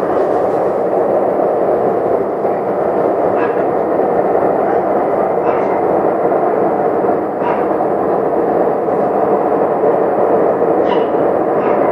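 Loud, steady rumbling of unknown origin, without a clear pitch. Short sharp sounds cut through it about five times. The husband took it for a train or a plane.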